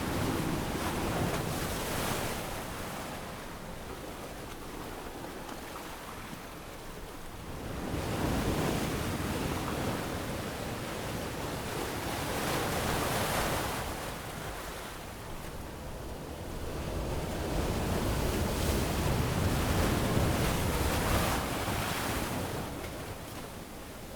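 Ocean waves breaking and washing up on a beach, swelling and fading in slow surges every few seconds, with some wind.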